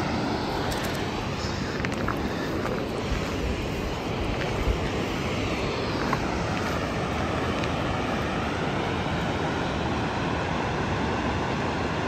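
Steady rush of water from the creek and falls in the ravine below, with a few faint clicks.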